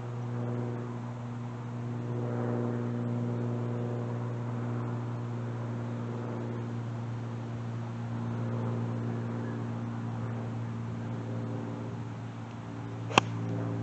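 Golf iron striking a teed ball: one sharp, crisp click near the end, over a steady low hum.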